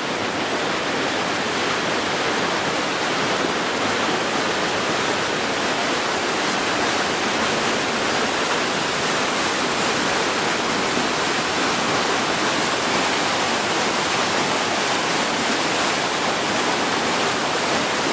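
Small river in spate after two days of rain, its brown floodwater rushing and churning over rocks: a steady, unbroken white-water noise.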